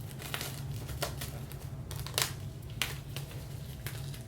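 A vinyl record's packaging being handled and opened: a few scattered crinkles and sharp clicks over a steady low hum.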